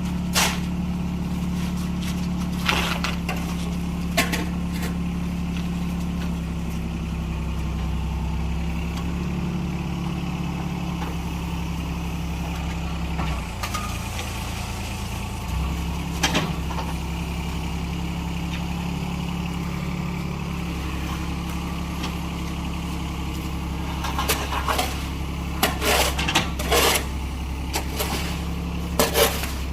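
Concrete mixer's engine running steadily, its pitch shifting briefly about halfway through. Sharp knocks and scrapes cut in now and then, coming more often near the end.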